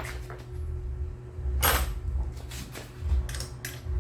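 Short scrapes and knocks of tools and metal parts being handled while the bolts on a small outboard motor are checked, three or four times over a steady low rumble.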